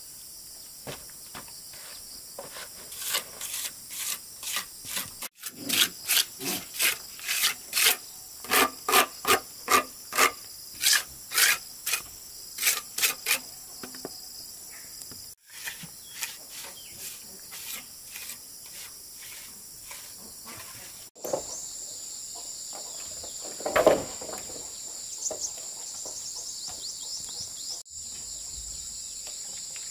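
A hand tool rasping rhythmically on wood, about two strokes a second, in runs broken by abrupt cuts; the strokes are loudest in the first half and fainter later. Crickets and other insects chirr steadily in the background.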